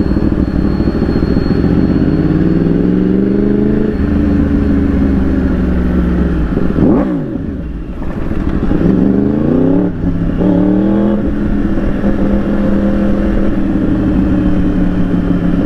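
Yamaha R1's inline-four engine pulling as the bike rides, its pitch climbing through the revs several times. The sound dips sharply about seven seconds in and breaks briefly at the gear changes, then holds steady near the end.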